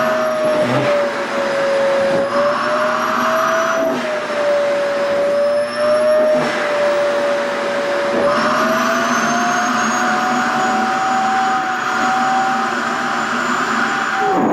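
SHARP EC-KP7F-A vacuum cleaner running with its nozzle sucking at an organza skirt: a steady motor whine over rushing air. The pitch dips and rises slightly a few times, stepping up about eight seconds in.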